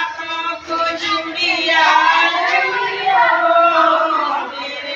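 Women singing a wedding song together, in long held notes without a break.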